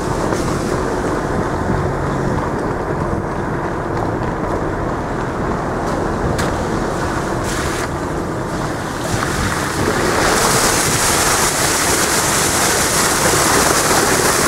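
Wind buffeting the microphone over a steady outdoor rushing noise, which gets louder and hissier about ten seconds in.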